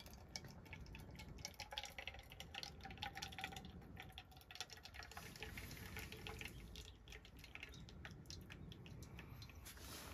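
Faint hot water being poured and dripping while coffee brews: a thin trickling tone for the first few seconds, amid many small drips and clicks.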